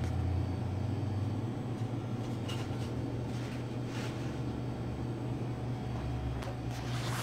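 Steady low mechanical hum of room machinery, such as ventilation or a refrigerated cooler, with a few faint clicks and knocks.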